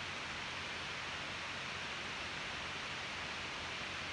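Steady background hiss with no distinct event.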